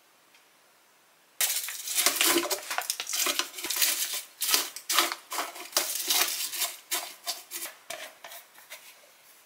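Dense crackling and crinkling of a dry, brittle food ingredient and its plastic packaging as it is tipped and pressed into a clear plastic storage jar. It starts suddenly about a second and a half in and thins out toward the end.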